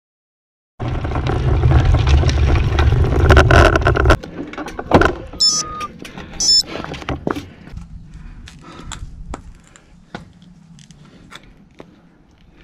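Wind buffeting an action camera's microphone for about three seconds. It gives way to a few sharp clicks and knocks, two short high chirps, and then quieter scattered clicks as cycling gear is handled.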